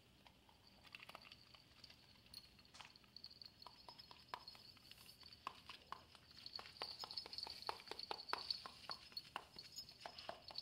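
Faint quick wet clicks and smacks of two dogs licking and nuzzling each other's faces. The clicks come faster and louder from about halfway through.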